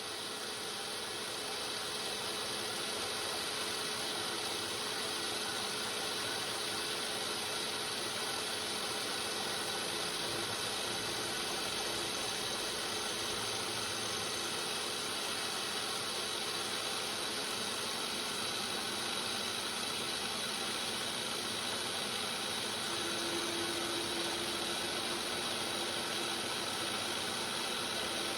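A workshop machine tool's electric motor and drive running steadily, with a constant mechanical hum and faint whine that builds up over the first couple of seconds.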